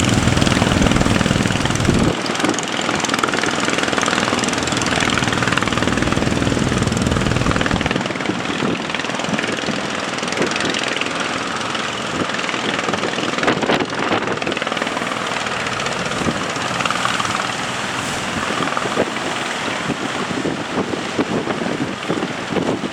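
Fishing boat motor running steadily, with a heavy low rumble for the first two seconds that then drops away.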